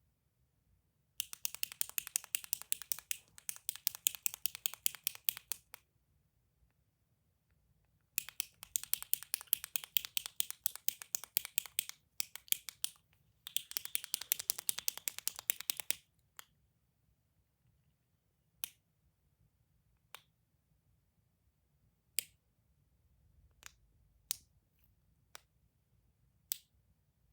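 A clicky toy clicking rapidly in three long runs of quick, closely spaced clicks, then single clicks every second or two.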